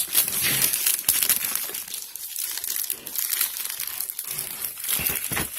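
Plastic film wrap around a socket set's case crinkling and crackling continuously as it is handled.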